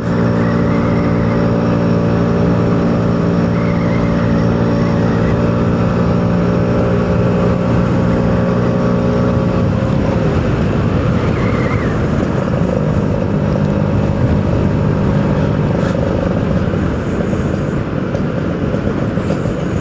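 Two-stroke engine running under way, holding a steady pitch for about the first half, then turning rougher and noisier from about halfway through.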